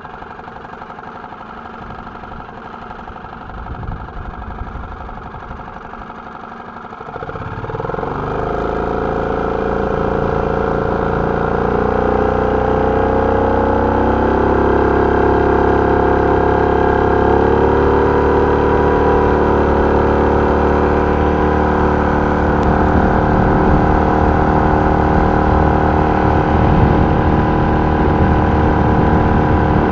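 Parsun F6 four-stroke outboard motor running at low throttle, then opened up about seven seconds in: its note rises and grows louder, and it settles into a steady run at speed with small shifts in pitch.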